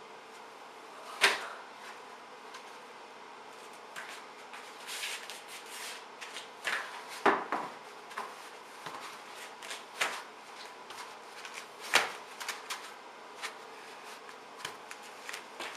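Thumps and scuffs of a person jumping around a foam roller on a hard floor: several sharp thumps a few seconds apart, with shuffling and scraping between them.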